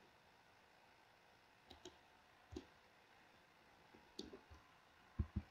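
Scattered clicks of a computer mouse and keyboard against near silence: a few faint clicks about two seconds in and around four seconds, and a sharper double click near the end.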